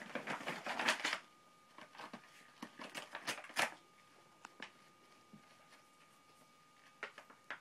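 A paper bag rustling and crinkling as a cat attacks it. It comes in dense bursts over the first second and again from about two to three and a half seconds in, then in scattered crackles, with a few more near the end.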